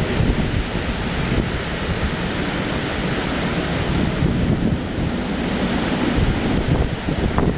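Typhoon wind blowing hard, a steady rushing noise with gusts buffeting the microphone.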